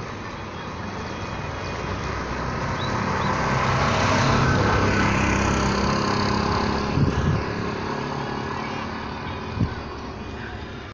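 A passing motor vehicle: engine and road noise swelling to its loudest around the middle and then fading, with two short knocks in the second half.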